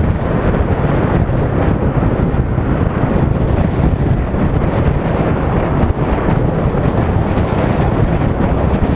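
Steady, loud wind buffeting the microphone of a camera on a moving motorcycle, with rumbling ride noise underneath.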